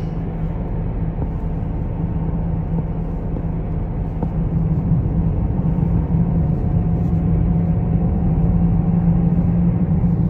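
Steady low drone of a car driving along a road, engine and tyre noise heard from inside the car, growing a little louder about halfway through.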